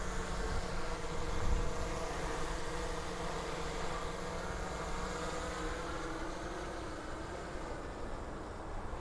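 DJI Mavic 3 Pro quadcopter propellers buzzing in flight with a steady pitch, slowly getting quieter as the drone moves away, over a low rumble.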